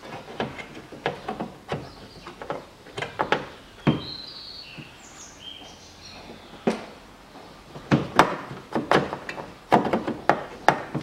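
Irregular clicks and knocks of plastic and metal parts inside a Range Rover Evoque front door as its handle mechanism is worked into place. A few bird chirps come in about four to six seconds in.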